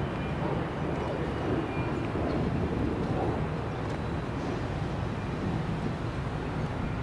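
Steady low rumble of a large engine.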